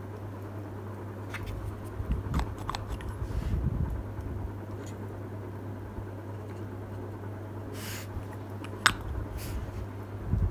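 Small clicks and taps of a paint pot and brush being handled at a hobby desk, with a short rustle about eight seconds in, over a steady low hum.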